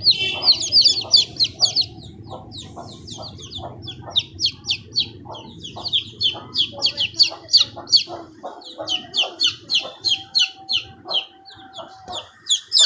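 Baby chicks peeping: a fast, steady run of short, high, falling peeps, several a second. Softer, lower calls sound beneath them.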